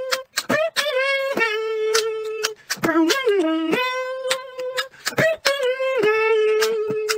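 Vocal beatboxing: a sung note held a second or more at a time, bending and stepping down in pitch between phrases, with sharp mouth clicks and percussive hits cutting in between the notes.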